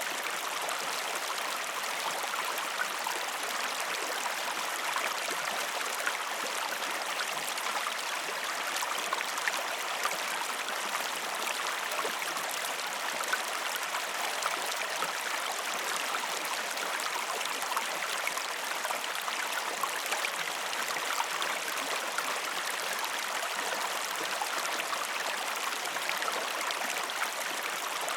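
Mountain stream cascading over rocks: a steady rushing of water with fine splashes and gurgles, and no birds.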